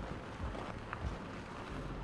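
City street ambience: a steady low rumble with wind on the microphone, and a short sharp click about a second in.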